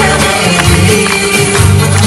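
Loud dance music for a belly dance, with a strong drum beat and jingling percussion.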